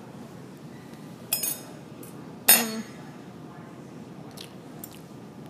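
Metal fork and knife clinking against ceramic dinner plates: two sharp, ringing clinks about a second apart, the second louder, then a couple of faint taps near the end.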